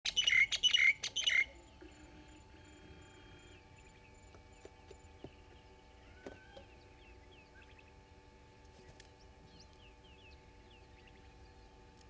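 Common myna giving a quick run of loud calls close to the microphone in the first second and a half. Fainter chirps of other birds follow in the background.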